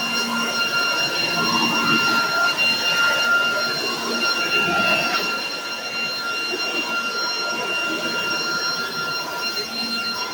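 Leaf blower running steadily, a high whine over a rush of air, blowing cottonwood fluff off a deck.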